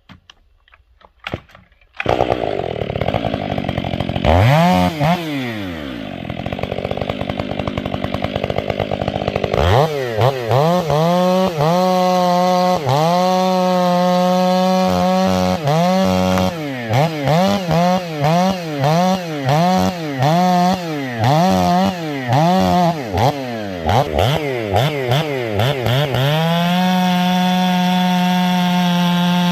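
Two-stroke chainsaw bucking a balsam fir log. The saw comes in loud about two seconds in and runs at high revs, its engine note dipping and recovering many times as it takes load. Near the end it holds a steady high rev.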